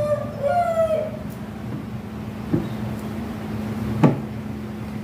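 A rooster crowing, its two-part call ending about a second in, over a steady low hum. A short knock about four seconds in, as a hand meets the plastic cabinet top.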